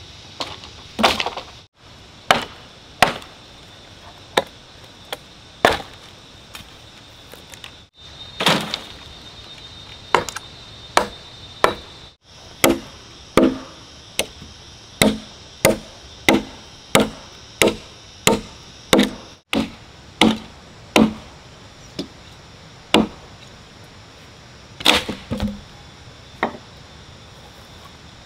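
Repeated chopping blows of a blade into wood, about one a second, quickening to about two a second in the middle, each a sharp crack with a dull thud underneath.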